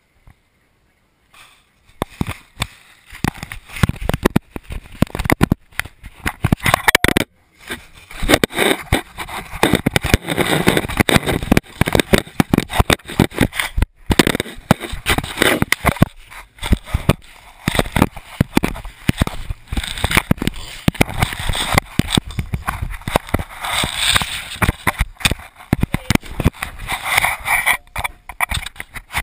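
Bulldog puppies nosing, licking and mouthing a GoPro camera: dense, irregular knocking, scraping and rubbing right on the camera body and its microphone, starting about a second and a half in.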